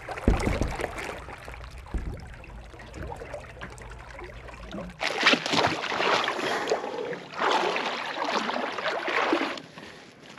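Water sloshing and splashing against the pontoon boat's hull, with a low rumble underneath. About five seconds in it gives way to louder, irregular rustling and scraping of clothing and gear handled close to the microphone.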